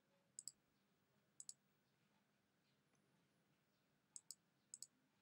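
Computer mouse clicking: four pairs of quick, faint clicks spread across a few seconds, over quiet room tone.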